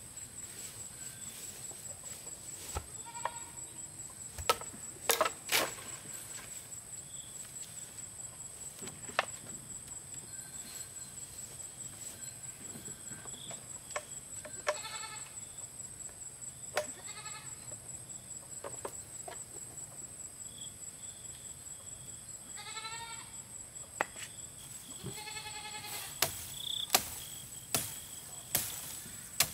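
Sharp wooden knocks and clatters as a wooden ladder is set against a tree trunk and climbed, coming thickest and loudest near the end. Under them runs a steady high insect whine, and a few short animal bleats sound between the knocks.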